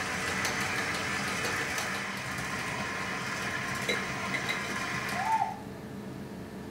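Electric stand mixer running steadily as it mixes chocolate cake batter, stopping abruptly about five seconds in.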